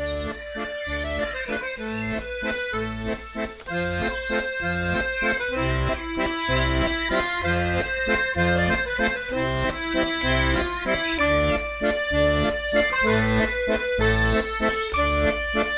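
Instrumental passage of a song: held reedy chords over a steady, repeating bass beat, with no singing.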